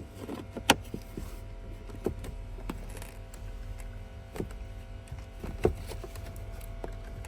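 Hard plastic clicks and knocks as the cabin filter's plastic cover is handled and fitted back into place, a few separate sharp clicks spread through, the loudest about a second in and near the end, over a steady low hum.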